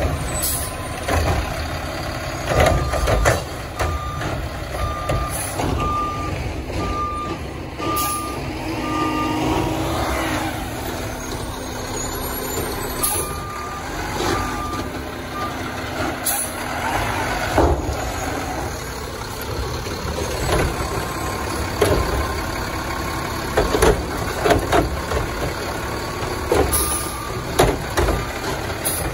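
Front-loading garbage truck's back-up alarm beeping steadily, a little faster than once a second, in two spells and briefly again near the end, over its diesel engine running. Several short sharp air-brake hisses come in between.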